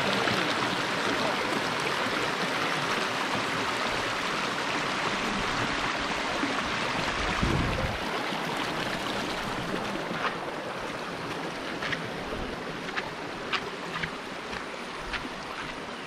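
Rocky hill stream rushing over stones, a steady hiss of water that eases slightly in the second half. A brief low thump about halfway through and a few sharp clicks near the end.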